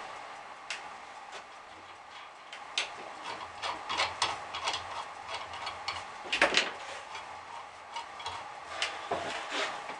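Irregular light metallic clicks and knocks of hands working on a bench drill press's belt and pulleys, with one louder knock about six and a half seconds in.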